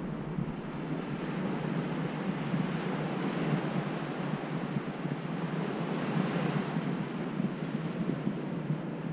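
Ocean surf breaking and washing up the beach, a steady rush with one wash swelling louder about six seconds in, and wind rumbling on the microphone.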